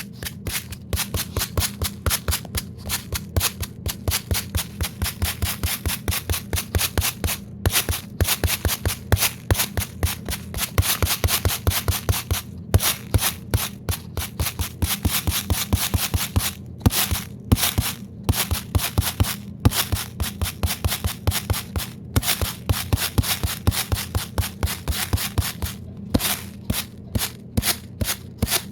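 Rapid, irregular scratching or clicking strokes, several a second, with a few brief pauses, over a steady low hum.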